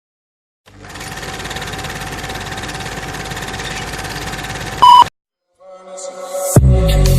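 Meme-style sound effects played back to back: a steady rapid mechanical rattle for about four seconds, ended by a short, very loud beep; after a brief gap, music with a heavy bass line comes in near the end.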